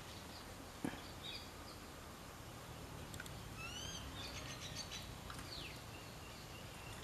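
Birds chirping intermittently over steady outdoor background noise, with a single sharp click about a second in.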